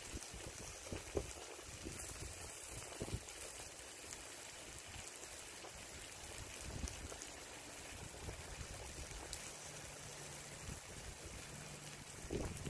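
Octopus and vegetables sizzling on a barbecue hotplate: a steady crackling hiss, with an irregular low rumble underneath.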